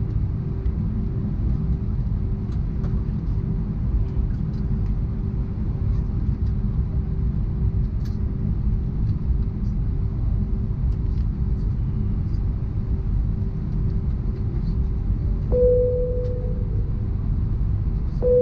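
Steady low rumble of an Airbus A319's cabin, from its IAE engines and the airflow, with a faint steady hum over it. Near the end a single-tone cabin chime dings twice, about three seconds apart.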